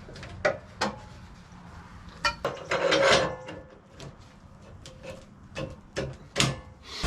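Hand work on a portable bandsaw mill: a string of sharp knocks and clicks, with a brief scraping rub about three seconds in, as parts of the mill are lowered and set.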